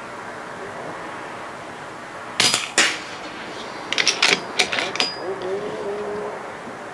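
Air rifle shooting through a Donny FL Tatsu moderator: two sharp cracks about half a second apart, a muffled shot and a pellet hitting the target board. About a second and a half later comes a quick run of five or six sharp metallic clicks.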